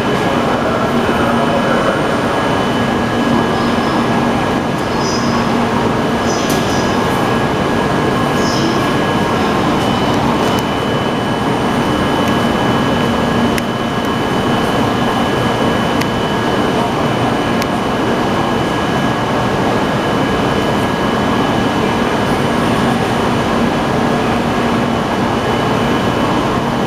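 Steady running noise of a train heard from inside the passenger car: an even rumble with a couple of faint, steady high tones over it.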